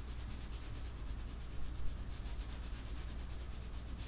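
Pencil shading on paper: a rapid, even run of short back-and-forth scratching strokes as the graphite is rubbed in to tone a car sketch.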